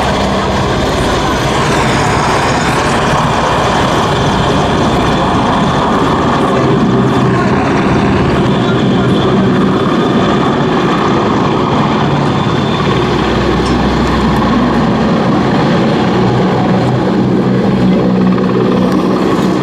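EH-101 Merlin helicopter running its three turbine engines and rotors as it flies a low display pass, a steady loud noise with a high turbine whine that bends in pitch about two seconds in.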